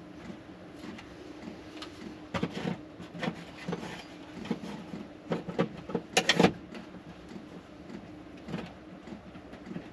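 Irregular light clicks and knocks of hands working at a small fitting on a wood-panelled wall, the loudest cluster about six seconds in, over a steady low hum.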